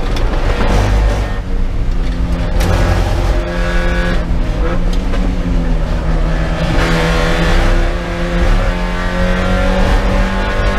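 Spec Miata's four-cylinder race engine heard from inside the cockpit, its note dropping as the car brakes and downshifts for a corner. From about two-thirds in, the pitch climbs steadily under full-throttle acceleration out of the turn.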